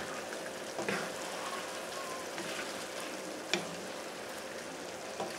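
Chicken pieces sizzling in hot oil in a frying pan as they are stirred, with a steady hiss. The utensil knocks against the pan twice, about a second in and more sharply near the middle.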